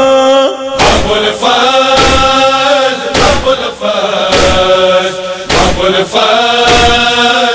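Male voices chanting a noha lament in chorus, over a steady beat of matam chest-beating strikes about once a second.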